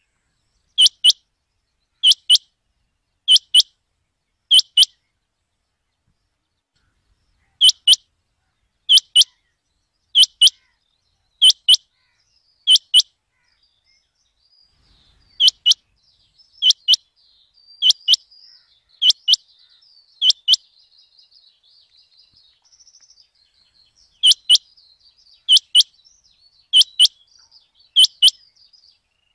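Rain quail calling: a sharp double note repeated about once a second in runs of four or five, with pauses of a few seconds between runs. Faint twittering of other birds underneath in the second half.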